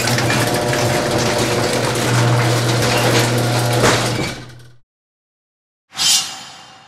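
A loud mechanical grinding noise over a steady low hum, starting and stopping abruptly after about five seconds. Then, after a gap of silence, one sudden loud hit that rings down.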